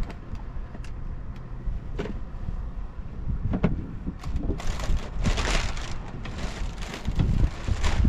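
Wind buffeting the microphone with a low rumble, broken by gusts or rustling bursts in the second half.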